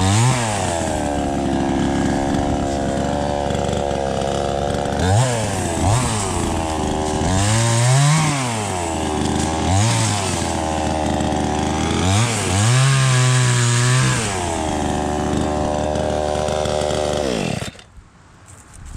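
Small two-stroke chainsaw with a 20-inch bar, cheaply made, running at full throttle while cutting limbs. Its pitch rises and then settles lower again about six times as it bites through the wood. Near the end it winds down and goes quiet.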